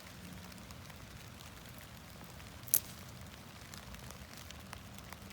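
Steady light rain, with one sharp snap nearly three seconds in.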